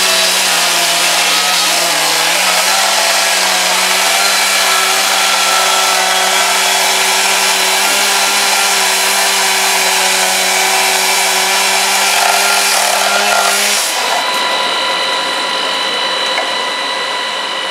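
Firefighters' petrol-engined power saw running at full throttle and cutting into a storage-unit door, a steady high engine note under a loud grinding hiss. It cuts off abruptly about fourteen seconds in.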